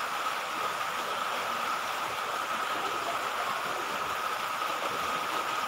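Steady rain: an even, unbroken hiss, with a steady high hum running under it.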